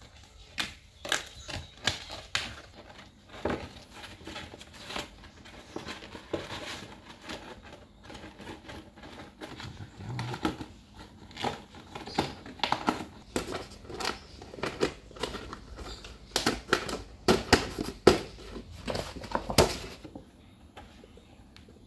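Stiff plastic panels of a foldable shoe box being bent and folded by hand: irregular clicks, crackles and crinkling, with the loudest snaps in a cluster shortly before it stops about twenty seconds in.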